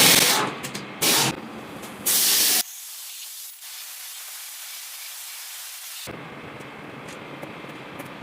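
Three short, loud hissing blasts of pressurized spray, the last one the longest, followed by a fainter steady hiss that stops about six seconds in.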